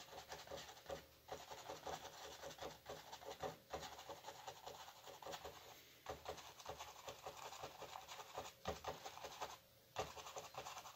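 A stiff bristle brush dabbing and scratching against stretched canvas as paint is stippled on: quick, irregular taps, several a second, broken by a few short pauses.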